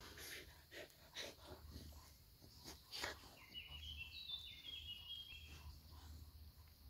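Faint wet licking and mouth clicks as a dog cleans another dog's ears, mostly in the first three seconds. A bird sings a short run of chirps in the middle, over a low rumble.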